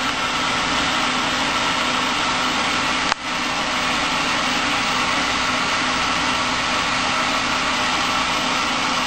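MAPP gas brazing torch burning with a steady hissing flame played against a coated cement block. A brief click and dip in level about three seconds in.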